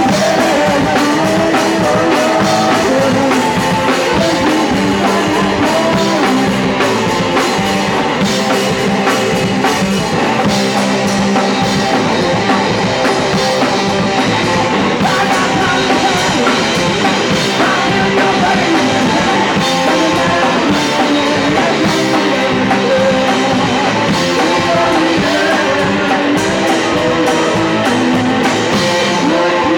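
Punk rock band playing live: distorted electric guitar, bass and a drum kit, with shouted singing.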